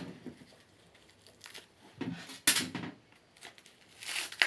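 Crinkling and rustling of material being handled, in short spells with quiet gaps, and a sharp knock about halfway through.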